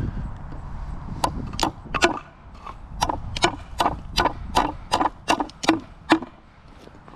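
A hammer striking metal, about a dozen sharp ringing blows in a steady rhythm of two to three a second, stopping about six seconds in.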